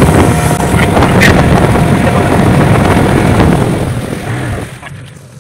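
Outboard motor of an inflatable dinghy running at speed, with wind buffeting the microphone. About five seconds in the motor is throttled back and the sound drops sharply.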